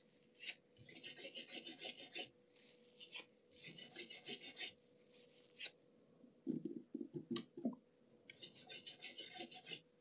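Scrubbing the freshly soldered laptop port board clean: about four short bursts of rapid back-and-forth rubbing strokes, with a few sharp taps between them.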